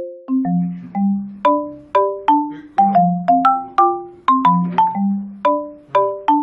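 Background music: a bright, bouncy mallet-percussion melody of struck notes, often sounded two or three together, each dying away quickly, at about two to three notes a second.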